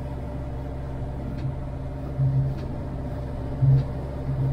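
Boat engine of a 21-foot Crooked PilotHouse running steadily under way, heard from inside the pilothouse cabin as a low, even drone. It swells briefly a few times, about two, three and a half and four and a half seconds in.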